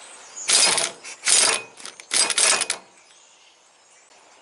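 Aerosol can of chain lube sprayed onto the U-joint press in four short hissing bursts, used in place of paste bearing grease to lubricate the tool.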